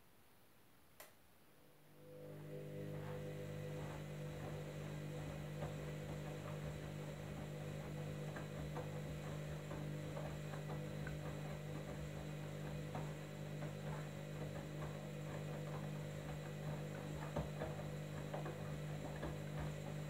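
Candy front-loading washing machine in its wash phase: a click about a second in, then the drum motor starts and runs with a steady hum, turning the drum with laundry and sudsy water sloshing inside.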